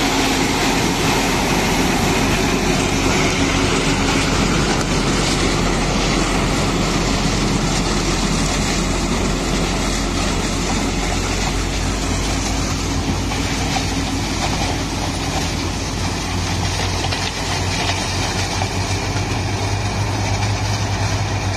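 Steady mechanical din of a sugarcane combine harvester at work: its diesel engine running under load as it cuts cane and its elevator throws chopped cane into a truck running alongside. A low engine hum grows stronger in the last few seconds.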